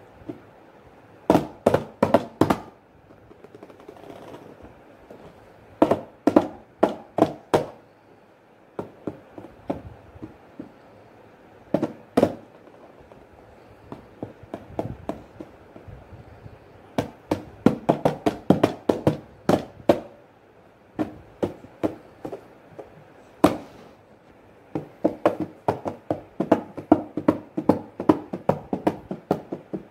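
A toddler drumming on a cardboard carton with his hands, as if playing tabla: flurries of quick slaps, several a second, with short pauses between the bursts.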